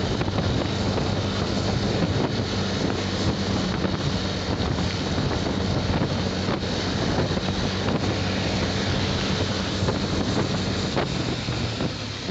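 Wind rushing over the microphone of a rider on a moving motorcycle, with a steady low engine hum underneath.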